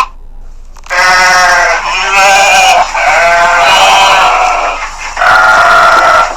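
Bleating livestock: about four long, wavering bleats in quick succession, the last one higher and steadier.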